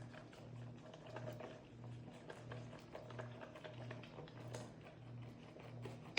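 Baby goats suckling milk from feeding bottles: faint, irregular wet clicks and smacks over a low hum that pulses about twice a second.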